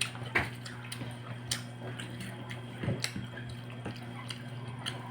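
Close-up eating sounds: wet chewing and lip smacks, with short clicks scattered through, over a steady low hum.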